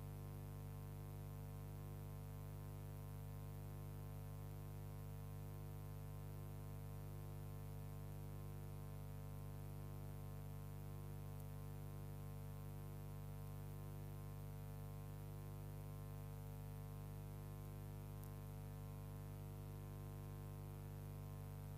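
Steady low electrical hum with many overtones, unchanging throughout.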